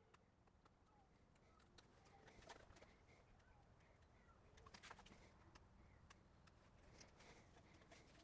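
Near silence, with faint scattered clicks and taps and a few faint distant bird chirps.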